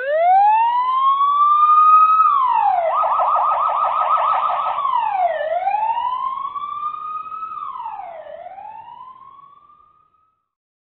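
Police car siren: a rising wail, then a fast yelp for about two seconds, then two slower wails that fade away near the end.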